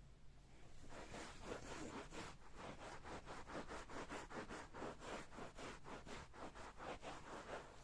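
Rapid back-and-forth scrubbing or rubbing strokes, about five a second, starting about a second in and stopping just before the end.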